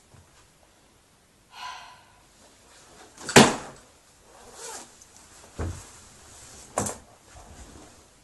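A person moving about in a bedroom doorway: three sharp knocks and thumps with handling rustle between them, the loudest about three and a half seconds in. A brief pitched squeak comes about a second and a half in.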